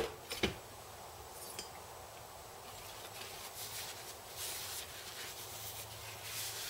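A single knock about half a second in as a hard object is set down on the workbench. After it comes faint, intermittent rustling and rubbing of a cloth shop rag wiping a small engine part.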